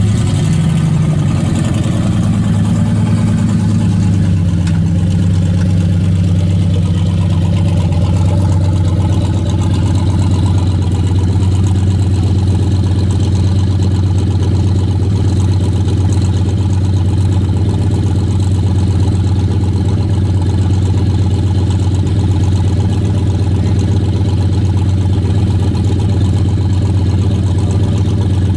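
Chevrolet Malibu coupe's engine running loudly. Its pitch eases down over the first few seconds, then it idles steadily.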